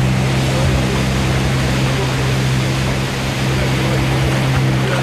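Outboard motor of an inflatable boat running steadily at a constant pitch, over the rush of fast river water and rapids.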